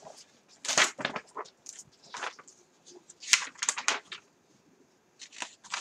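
Irregular rustling and crinkling of craft-supply packaging being handled, in short bursts about a second apart.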